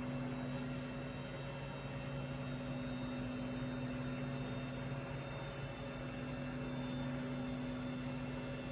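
Steady electrical hum over a faint even hiss.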